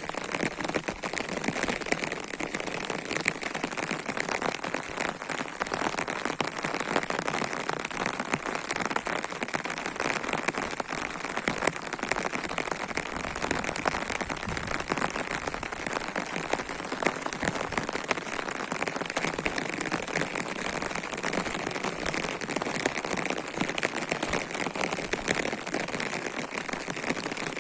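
Heavy rain falling steadily, a dense patter of drops with no let-up.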